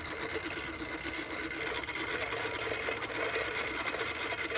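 Horse-drawn 1880s Green's Silens Messor cylinder lawnmower cutting grass: the reel of blades spins against the cutting bar with a fast, even clatter as the horse pulls it along.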